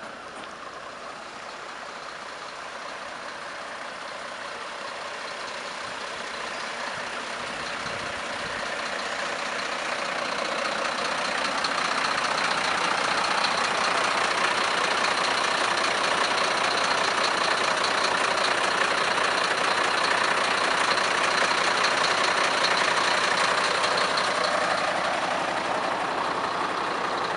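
Fire engine idling at the scene, a steady engine sound that grows louder over the first dozen seconds, then holds.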